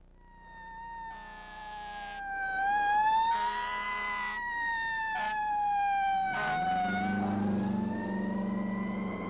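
Fire engine siren in a slow wail, falling and rising in pitch, with several short air-horn blasts over it. From about six and a half seconds in, the truck's engine grows loud as it passes close.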